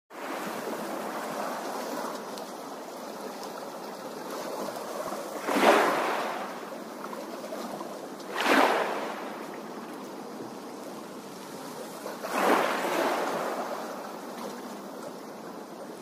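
Small waves washing and splashing onto a stony shore: a steady wash of water with three louder splashes a few seconds apart.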